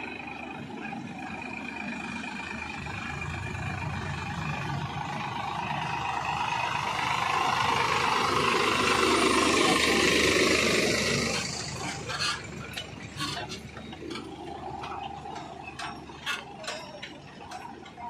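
Sonalika 740 DI III tractor's diesel engine running as it pulls a loaded trolley past close by: it grows louder to a peak about ten seconds in, then drops off suddenly as it moves away. Sharp clicks and rattles follow over the last few seconds.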